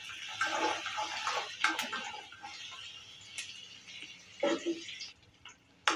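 Chopped onion, green chilli and curry leaves sizzling in hot oil in a metal kadai, with a spatula stirring and scraping against the pan now and then. The sizzle drops away about five seconds in.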